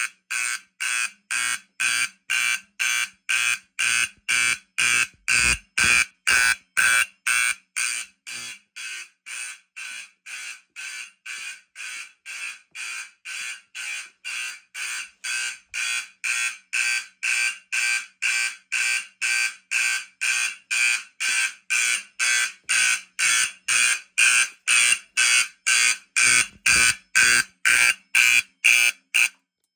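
Simplex 4040 fire alarm horns sounding in march-time code, about two blasts a second. They are quieter for a stretch in the middle and cut off just before the end.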